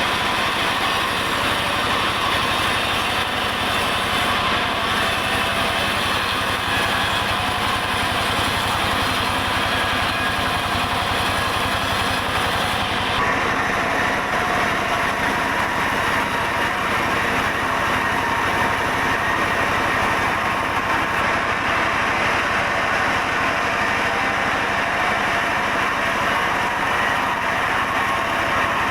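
Sawmill saw and its engine running steadily, a constant machine noise with a low hum under a bright hiss. About halfway through, the highest part of the hiss drops away.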